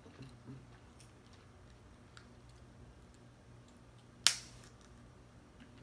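Cooked crab leg shell snapped apart by hand: a few faint clicks as the shell is worked, then one sharp, loud crack about four seconds in.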